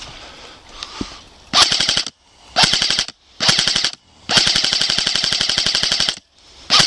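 Airsoft rifle firing on full auto, in five bursts of rapid clicking shots; the fourth burst is the longest at about two seconds.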